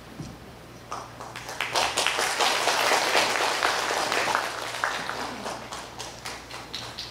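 Audience applauding in a hall: the clapping starts about a second in, swells to its loudest in the middle, then dies away near the end.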